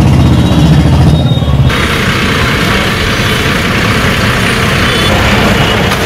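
Motor vehicle engine running with a low hum, which cuts off abruptly less than two seconds in. A steady rushing street noise follows.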